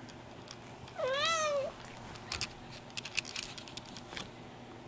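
A two-week-old Persian kitten gives one short, high mew about a second in, its pitch rising then falling. A few faint clicks and rustles follow.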